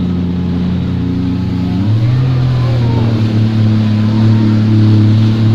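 Jet ski engine running at steady revs, its pitch stepping up about two seconds in as the throttle changes, over the hiss of water and wind.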